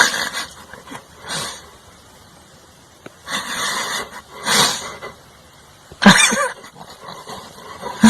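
Several short animal sounds, about five, with quiet gaps between them; the loudest comes about six seconds in.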